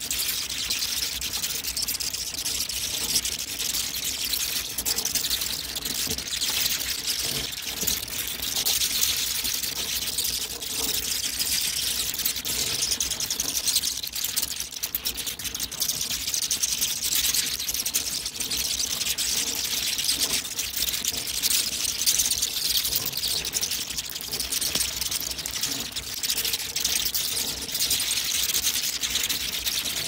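Many bats chittering and squeaking together: a dense, steady mass of high-pitched chatter and fine ticks that never pauses.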